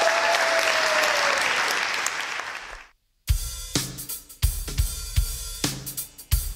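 Applause that dies away over about three seconds. After a brief silence a live band's drum kit comes in with kick drum and cymbal hits as the song begins.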